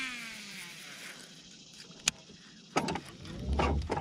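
Baitcasting reel: a whirring whine that falls in pitch and fades over about a second, then a sharp click about two seconds in, followed by the reel being handled and cranked, with a low hum joining near the end.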